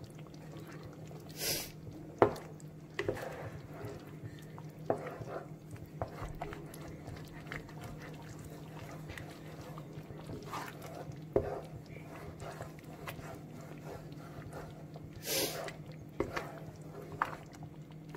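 Wooden spoon stirring thick chicken rice porridge in a nonstick pan, with scattered knocks of the spoon against the pan and two short hissing scrapes, over a steady low hum.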